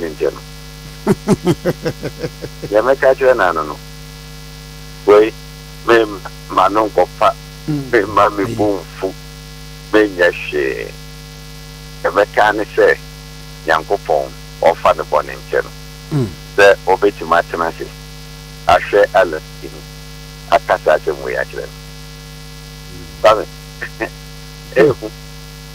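A man talking in short phrases over a steady electrical mains hum that runs under the whole stretch.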